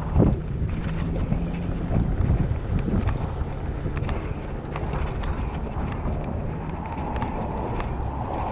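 Wind buffeting the microphone while riding an electric kick scooter, with a low steady hum and scattered small knocks and rattles.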